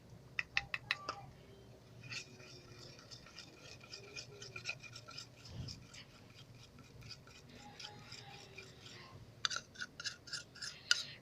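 Slime mixture being stirred in a small container, the stirring utensil scraping and clicking against its sides. A quick run of clicks opens, then several seconds of rapid, even scraping, then more clicks near the end.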